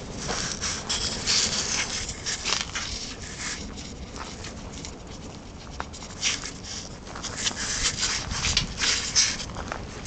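Fire blazing in a burn barrel, crackling and hissing in irregular flurries. The crackling is heaviest in the first few seconds and again from about six to nine seconds in.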